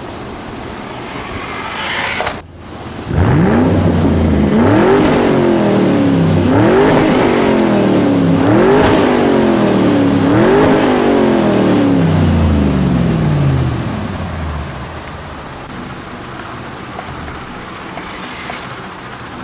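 Engine revving sound, four times in a row, each rev climbing quickly and then dying away slowly. It fades into a steady running noise after about 13 seconds.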